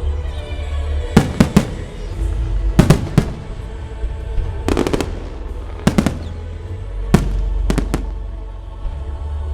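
Fireworks shells bursting in sharp bangs, about a dozen, several in quick pairs and triples, with a burst of crackle about five seconds in. Music plays steadily underneath.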